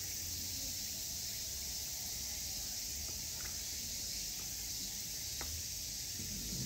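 Steady outdoor background hiss with a low rumble, broken by two faint brief chirps about three and a half and five and a half seconds in.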